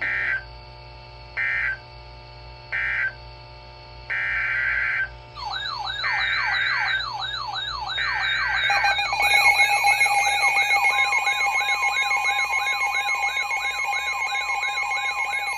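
EAS/SAME digital data bursts from a weather radio: three short buzzy bursts close the previous warning, and three longer header bursts about two seconds apart open the next one. From about five seconds in, a wailing alarm tone sweeps up and down about twice a second. From about nine seconds in, the steady two-tone EAS attention signal joins it.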